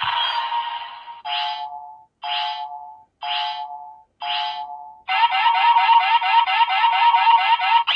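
Electronic sound effects from a Kamen Rider Gotchard DX summoner toy. It starts with a short burst, then plays four chiming tones about a second apart, and from about five seconds in a fast repeating pulsing loop.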